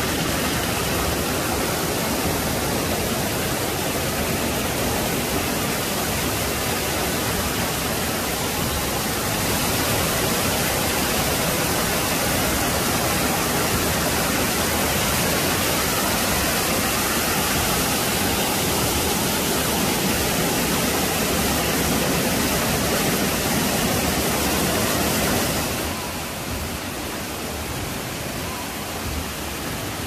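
A waterfall's steady, dense rush of falling water. About three quarters of the way through it drops a little in level and sounds duller.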